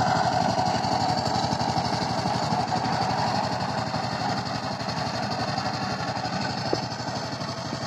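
Two-wheel power tiller's single-cylinder diesel engine running steadily under load while the tiller works the soil, with a rapid, even beat, growing gradually fainter.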